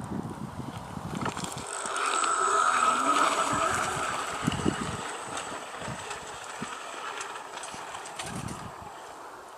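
Electric mountain bike's 10,000 W dual hub motors whining as the bike pulls away up a steep dirt climb. The whine swells about two seconds in and then fades as the bike moves off, with a few low thumps in the background.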